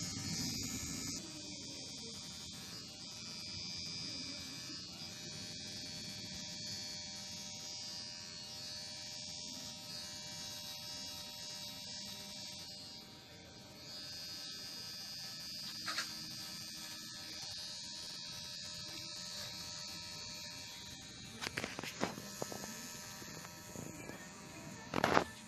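Kemei KM-2850 electric hair clipper running steadily through a haircut. A few sharp clicks come through it, the loudest near the end.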